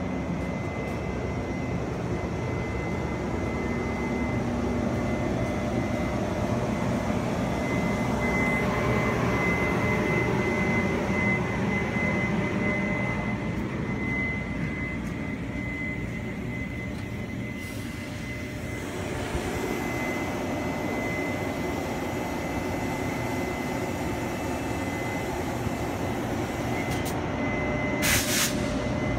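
E200-class electric locomotive standing under power: a steady roar from its running equipment, with a thin high whine held throughout. A brief sharp hiss about a second before the end.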